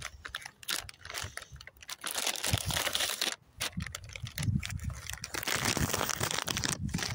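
Crinkling and rustling of a plastic packet of flatbread wraps as a wrap is pulled out of it, a dense crackle broken by a short pause midway.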